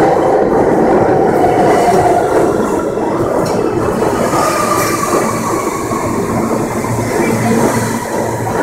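R160B Siemens subway train moving along the platform, its wheels rumbling and clattering on the rails. A steady whine sounds over it for the first couple of seconds, and a higher whine from about the middle falls slowly in pitch.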